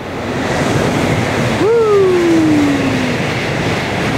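Shinkansen bullet train passing overhead on a viaduct: a loud rushing sound that swells up in the first second and holds. About one and a half seconds in, a single tone comes in and slides down in pitch.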